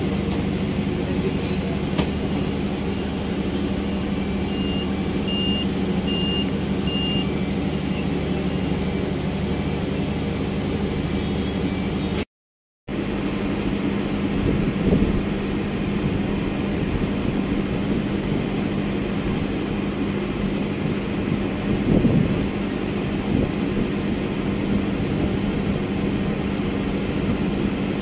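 A small boat's engine running steadily with a low drone. A few faint short high beeps sound about five seconds in, and the sound cuts out completely for half a second near the middle.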